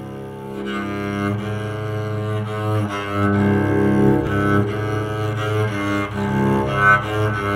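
Homemade electric cello bowed and played through a small amplifier: a slow melody of sustained notes changing every half second or so over a steady low held note.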